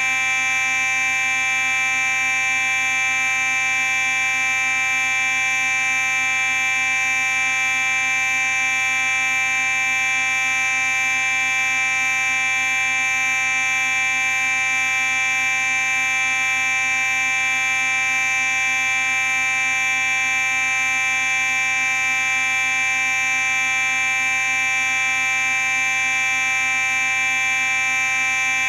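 Simplex 4903-9838 fire alarm sounding continuously in one steady, unbroken tone, rich in overtones and strongest in the upper-middle pitches.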